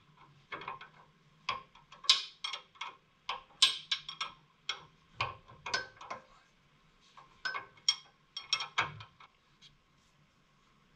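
Hand wrench clicking and clinking in irregular bursts on the top nut of a Jeep Wrangler JKU's front sway bar link as the stuck nut is worked loose, stopping about nine seconds in.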